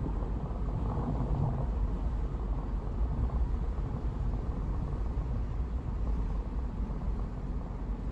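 A car being driven, with a steady low rumble of road and engine noise.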